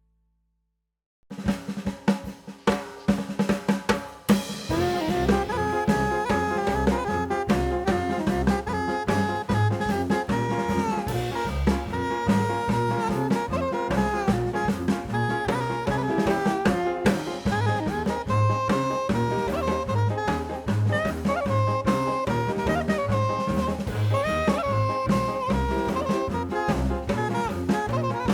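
Music: after a second of silence, drum fills for about three seconds, then a full band comes in with a steady drum beat, bass line and melody.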